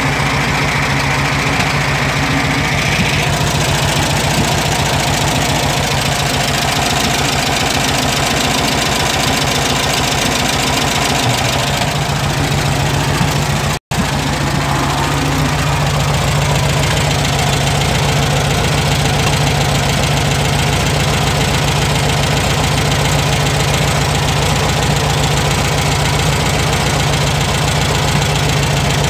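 Volkswagen Beetle's air-cooled flat-four engine idling steadily with the muffler removed, running on just the bare exhaust pipe, loud and raw. The sound drops out abruptly for an instant about 14 seconds in, then resumes.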